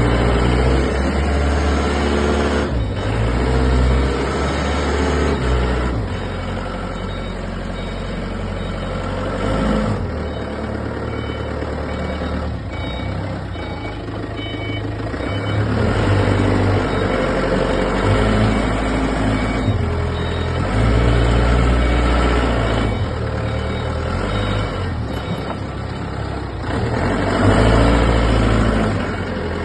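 Forklift engine running and revving up and down as it lifts and moves loads, with a reversing alarm beeping through the middle stretch.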